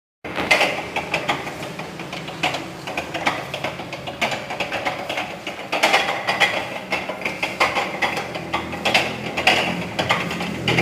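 Pastry dough sheeter machine working, with irregular mechanical clatter and knocks over a faint low hum.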